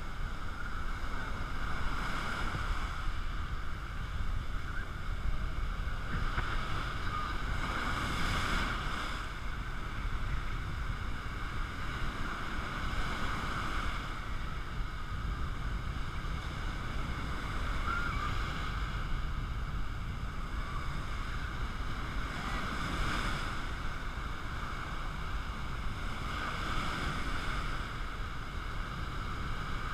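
Sea waves breaking and surf washing around the microphone, swelling every few seconds, over a steady low rumble of wind on the microphone.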